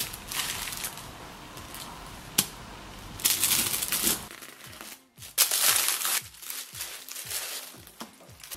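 Plastic cling film and bag crinkling loudly in three bursts as a baguette is unwrapped by hand, over background music.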